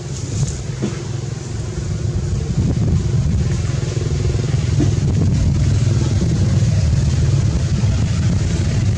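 A motor vehicle engine's steady low rumble, growing louder about two to three seconds in and then holding.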